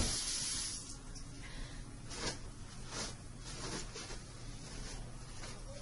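A hiss that fades away over the first second, followed by several short, faint hissing strokes.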